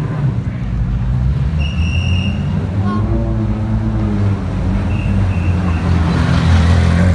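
Rally car engine running loud and steady, growing noisier near the end. Two short, high, steady tones sound over it, one about a second and a half in and one about five seconds in.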